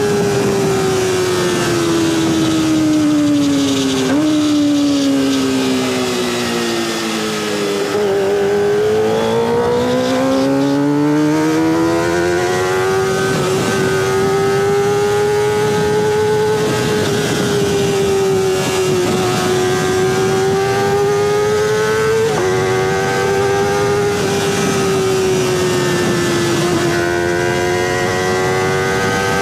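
Kawasaki ZX25R's 250 cc inline-four running at high revs through a Sphere stainless-steel full-system exhaust. The engine note falls over the first several seconds, climbs again, then holds high with small dips and a couple of quick jumps in pitch.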